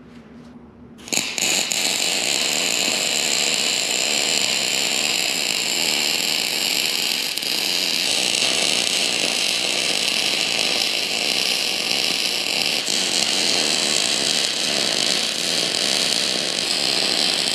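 A large electric sander starts up about a second in and runs steadily with a high motor whine, grinding surface rust off thick steel plate.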